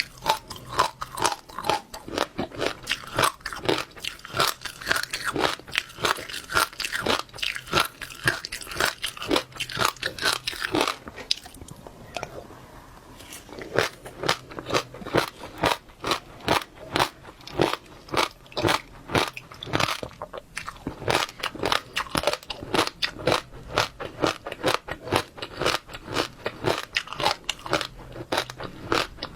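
Close-miked chewing of passionfruit seeds: rapid, crisp crunching and popping as the seeds break between the teeth, with a brief pause about twelve seconds in.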